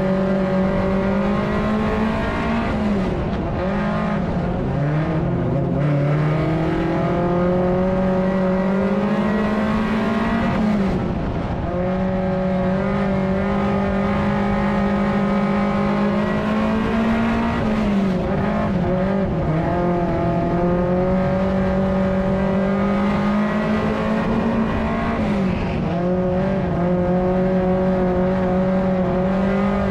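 Mini stock race car's four-cylinder engine heard from inside the cockpit, running hard at high revs. Its pitch dips and climbs back four times, about every seven seconds, as the driver lifts off for the turns and gets back on the throttle.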